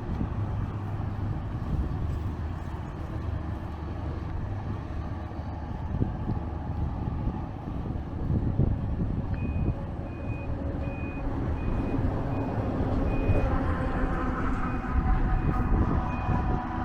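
City street traffic rumbling, with a vehicle's reversing alarm starting about halfway through: a high beep repeating about twice a second. Near the end a vehicle's motor hum comes up under the beeping.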